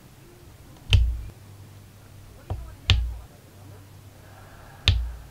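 Diamond-painting drill pen pressing square drills onto the sticky canvas: a sharp tap with a dull thud under it, four times, one lighter than the rest, roughly every two seconds.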